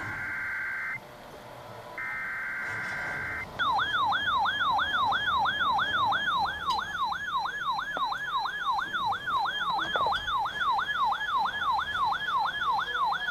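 Emergency Alert System monthly test: the end of one harsh, buzzing header data burst, then a second burst, each about a second and a half long. From about three and a half seconds in, a loud siren-like alert tone follows, yelping up and down about three times a second.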